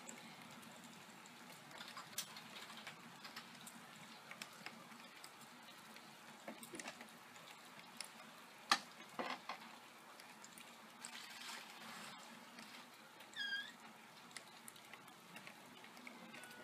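Steady, faint rain with scattered drips and ticks of drops, one sharp tick standing out about halfway through. A single short, high squeak sounds about three seconds before the end.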